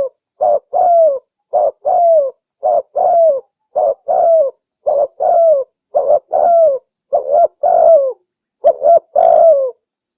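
Spotted dove cooing as a bird-trapping lure call: a short note followed by a longer falling coo, repeated about once a second, stopping shortly before the end.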